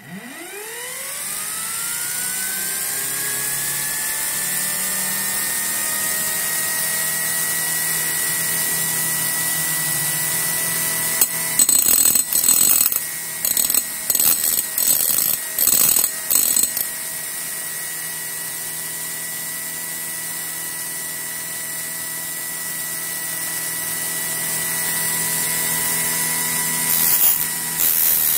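A 250 V brushed universal blender motor, run on about 11 V DC, spins up from rest with a rising whine over about three seconds, then runs at a steady high-pitched whine at around 10,000 RPM. Loud broken bursts of noise cut in for several seconds about halfway through and briefly again near the end.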